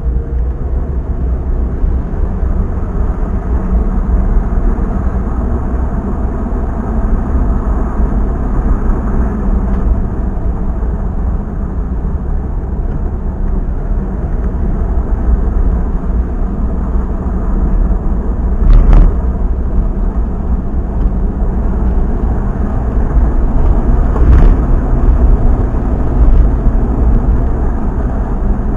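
Steady engine and road noise of a vehicle on the move. Two brief knocks, about two-thirds of the way through and a few seconds later, sound like the vehicle going over bumps.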